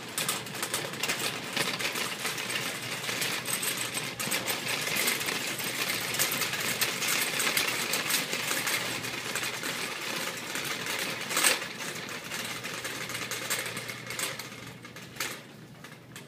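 Wire shopping cart rolling, its wheels and basket rattling fast and steadily, with a couple of louder knocks in the second half.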